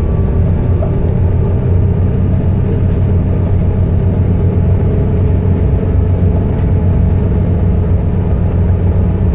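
Volvo B7TL double-decker bus's diesel engine and road noise heard from inside the passenger cabin while driving: a steady low rumble.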